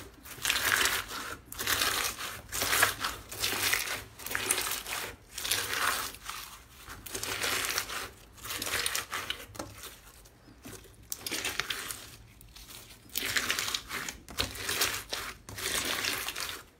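Hands squeezing and kneading a large mass of crunchy clear 'crushed ice' slime: a run of crackling, crinkling squishes, about one a second, with a quieter stretch past the middle.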